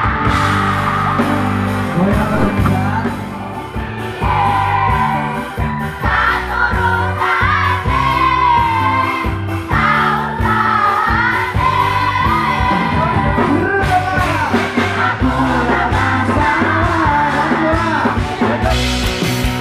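Loud live band music over a stage loudspeaker system, with a lead vocal and a crowd of fans singing along and cheering.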